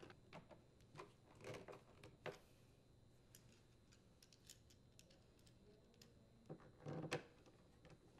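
Faint clicks and light knocks of a screwdriver driving screws into a plastic leaf blower housing, with a louder knock about seven seconds in.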